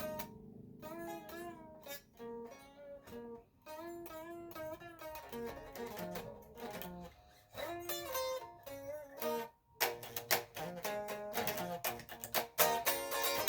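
Guitar played solo, with no singing: a picked single-note melody that turns into fuller, louder strumming about ten seconds in.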